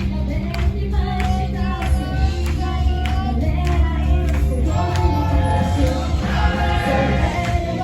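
Idol pop song performed live: a high female voice singing over a loud backing track with a steady drum beat and heavy bass.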